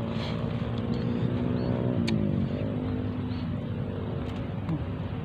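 An engine running steadily with a low hum, its pitch dipping and recovering briefly about two seconds in.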